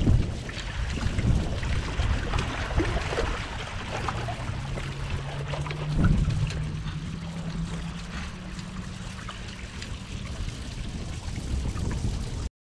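Water trickling and sloshing against the hulls of a Hobie 16 catamaran under sail, with wind rumbling on the microphone. A low steady hum joins for several seconds in the middle, and the sound stops abruptly near the end.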